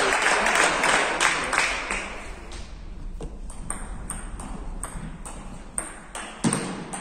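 Applause fades out over the first two seconds or so. Then a table tennis ball clicks back and forth off the bats and the table in a rally.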